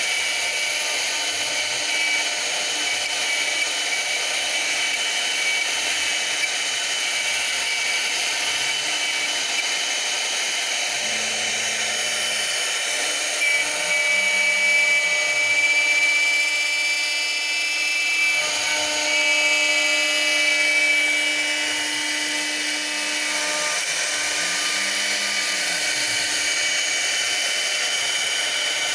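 CNC machine running: a steady high-pitched whine, with the axis motors driving in short moves whose hum rises and falls in pitch several times.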